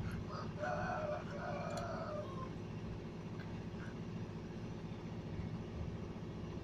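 A rooster crowing once, a call of about two seconds starting just after the beginning, over a steady low hum.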